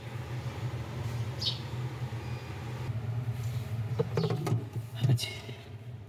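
A steady low hum, with a short high chirp about a second and a half in and a few soft clicks near the end.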